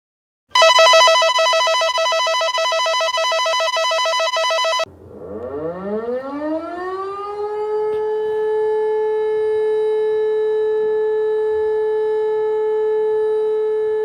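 Emergency alarm sounds. First comes a loud, rapidly pulsing electronic alarm tone that cuts off suddenly after about four seconds. Then a siren winds up, rising in pitch over about three seconds, and holds one steady tone.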